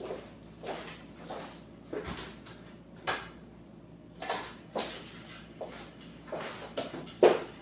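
Light knocks and clatters of things being handled and moved about, several a second, with a brighter, sharper rattle about four seconds in and the loudest knock near the end.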